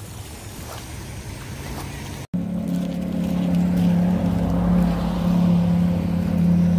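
Quiet outdoor background noise, then about two seconds in an engine drone starts abruptly and runs loud and steady at one unchanging pitch.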